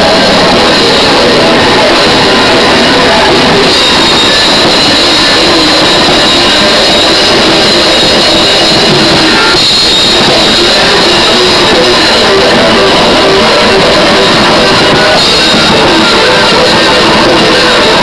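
Metalcore band playing an instrumental song without vocals: electric guitars, bass guitar and drums, recorded loud and overloaded, close to full scale throughout.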